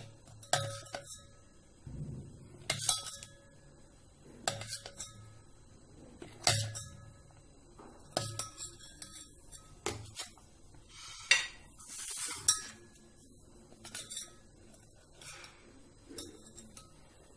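A steel spoon clinks against a stainless steel bowl of sugar syrup again and again at irregular intervals, while fried sweets are turned and lifted. Some strikes leave the bowl ringing briefly.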